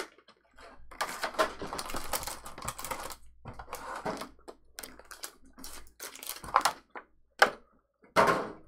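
Pokémon trading cards and foil booster-pack wrappers being handled: a run of rustling and quick clicks, then scattered taps, with a few sharper snaps near the end.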